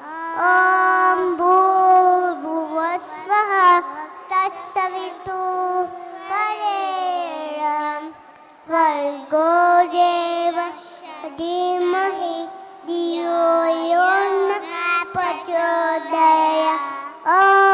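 Young children singing a song together in unison, in long held and gliding notes.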